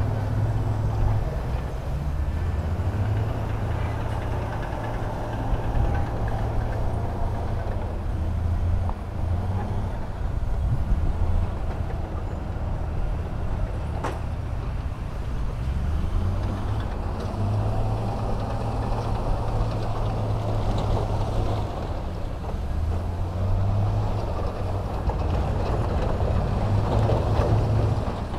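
Heavy diesel earthmoving machinery, a wheel loader and a ten-wheel dump truck, running under load with a strong low rumble that rises and falls as the engines rev. A higher whine swells and fades several times, and there is a single sharp knock about halfway through.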